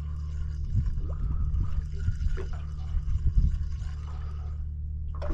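Water lapping and splashing against a small boat's hull at sea, in irregular slaps, over a steady low drone.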